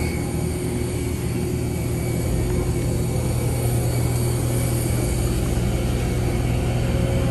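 Engines running on an airport apron: a steady low rumble with faint, steady high-pitched whining tones above it, rising slightly in level about two seconds in.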